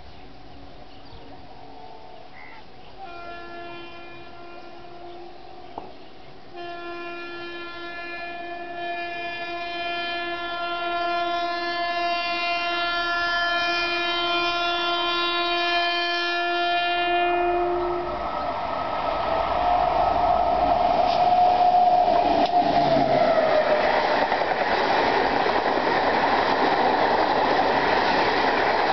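The horn of a WAP7 electric locomotive hauling an express at speed: a short blast about three seconds in, then one long steady blast of about eleven seconds. The train then rushes past, and the rumble and clatter of the locomotive and coaches on the rails grows loud and stays loud.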